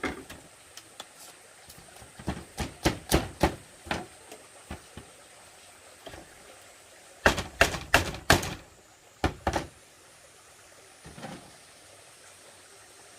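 Bamboo being knocked and tapped during handwork: irregular sharp knocks in two bursts, one a couple of seconds in and a louder one about seven seconds in.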